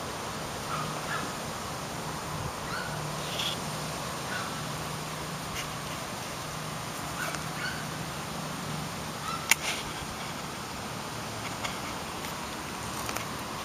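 Chinese Crested puppies giving short, faint squeaks and yips now and then while playing, over a steady outdoor hiss and low hum. A single sharp click about two-thirds of the way through.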